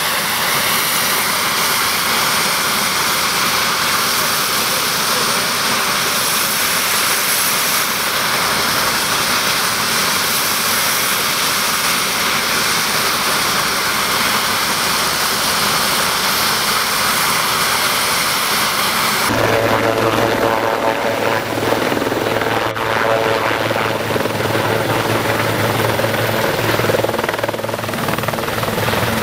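A medevac helicopter's turbine engines running, heard as a loud steady whine and hiss with high tones. About two-thirds of the way in, the sound switches abruptly to a steady low hum from the turning rotor, under the same hiss.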